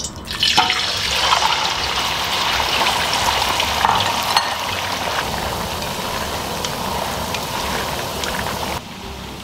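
Toothpick-skewered beef pieces going into hot oil in a wok and deep-frying: a steady sizzle with scattered crackles that starts as the meat hits the oil and stops suddenly near the end.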